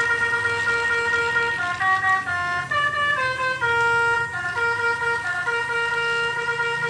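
Telolet Basuri multi-tone horn playing a tune. A held chord gives way, about two seconds in, to a run of stepping notes, and the chord returns about five and a half seconds in.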